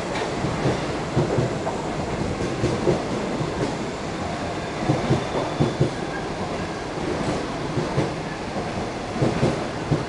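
Type 25Z passenger coaches of a locomotive-hauled train rolling past. Their wheels clatter over the track in repeated heavy thumps, often in close pairs, over a steady rumble.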